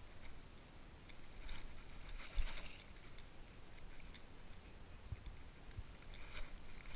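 Hooked bass splashing in shallow water at the shoreline, with one short splash about two and a half seconds in. A steady low rumble sits on the microphone underneath.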